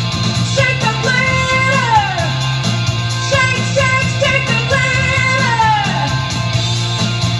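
Upbeat pop-rock song playing, in a stretch with no words sung, over a steady bass. The lead melody slides down in pitch a few times.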